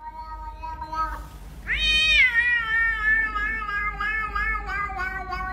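A cat meowing: a short call, then about two seconds in a long drawn-out meow that rises sharply and then slowly falls, its pitch wavering.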